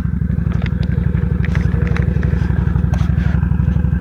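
An ATV engine idling steadily close by, with a low, even pulse.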